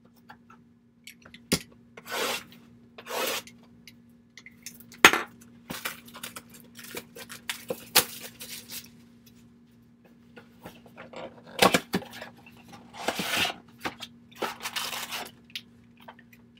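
A cardboard trading-card box being handled and opened by hand: several short swishes of cardboard about half a second each, mixed with sharp clicks and taps, the loudest about five seconds in. A faint steady hum underneath.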